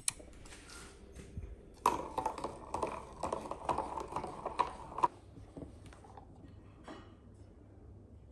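A spoon stirring smoothie in a plastic jug, clicking and knocking against the jug's sides in a quick run of clicks. The run starts about two seconds in and stops about five seconds in.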